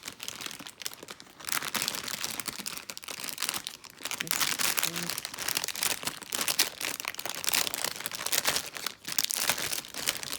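Thin plastic packaging crinkling and crackling as it is handled, in a dense, irregular run of small crackles.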